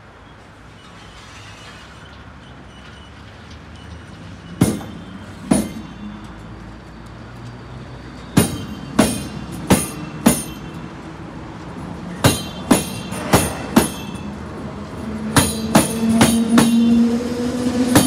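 Berlin S-Bahn class 485 electric train pulling out and gathering speed. Its wheels knock over the rail joints in pairs of sharp clacks that come faster and faster. Near the end a motor hum rises in pitch as it accelerates.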